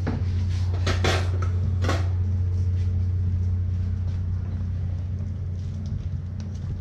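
A steady low machine hum, with a few short knocks or scrapes in the first two seconds.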